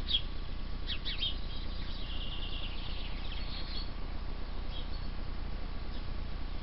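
Small birds chirping: a few short high chirps about a second in and a quick high trill around two seconds in, with fainter chirps later, over a steady low background rumble.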